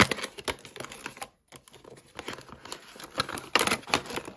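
A HeroClix booster pack being opened by hand: scattered clicks, taps and rustles of cardboard and clear plastic packaging, with a brief pause about a second and a half in and a cluster of sharper clicks near the end.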